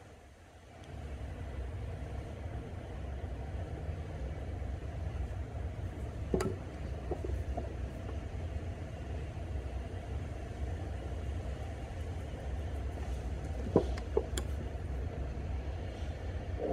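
A steady low machine rumble, like an engine running, sets in about a second in and keeps going, with a few sharp clicks over it about six and fourteen seconds in.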